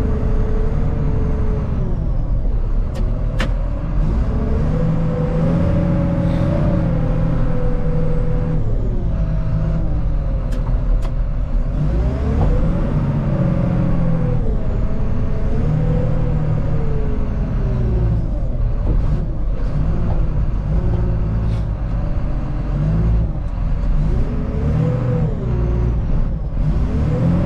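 Loader's diesel engine, heard from inside the cab, running under load and revving up and down again and again as the machine drives and scoops road salt with its bucket. A few sharp clicks stand out, about three seconds in and again around ten seconds in.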